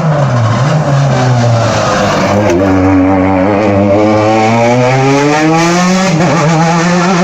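Rally car engine coming out of a hairpin: the revs waver low, then climb steadily for about three seconds before a quick dip for an upshift near the end.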